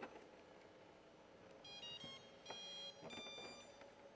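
Brushless motor speed controllers beeping their power-up tones through the motors once the battery is connected: a quick run of short stepped electronic notes, then two longer beeps, the signal that they have found the battery and armed.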